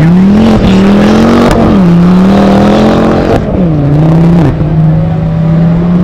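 Autocross race car engine accelerating hard on a dirt track. Its pitch climbs and drops back at each of about four gear changes, then holds a steady note for the last second and a half.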